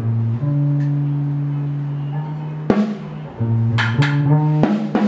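Guitar playing held low notes that change every second or so, with drum kit hits coming in about three seconds in and several more in quick succession near the end.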